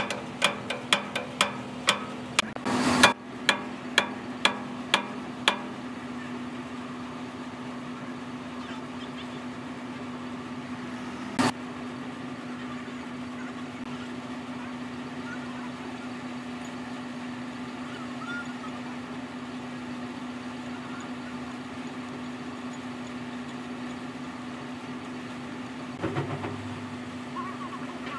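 Sharp metallic clicks about twice a second for the first five or so seconds, with a louder rasping burst near three seconds in, as the nuts on a wheel-loader hub's studs are worked with a hand tool. A steady machine hum runs underneath, and a single sharp click comes about eleven seconds in.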